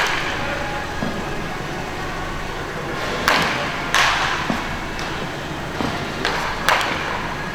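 Sharp cracks of baseball practice, balls being struck or caught, five or six at irregular intervals, each ringing on briefly in the echo of a large indoor practice hall.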